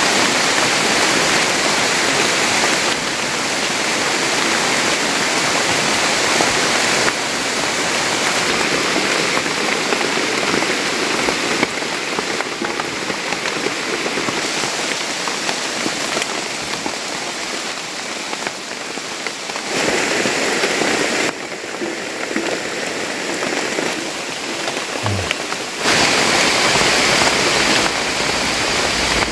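Heavy rain falling, a dense steady hiss, its loudness stepping up and down abruptly every few seconds.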